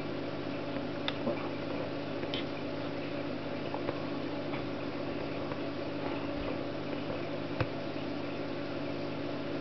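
Steady low hum with a few faint, sharp clicks, like a netbook's touchpad buttons being pressed.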